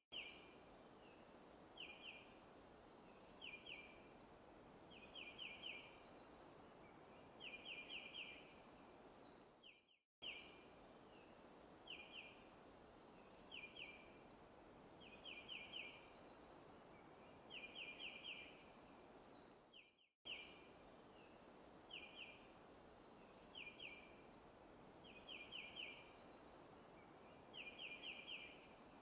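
Faint birds chirping in quick clusters of one to four short, high notes over a soft, steady hiss of forest ambience. The same ten-second stretch repeats as a loop, dropping out for an instant at each restart, about ten and twenty seconds in.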